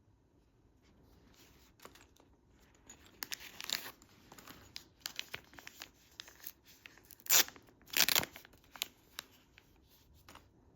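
Packaging being torn open and crinkled by hand in a series of irregular rips and rustles, the two loudest tears coming about seven and eight seconds in.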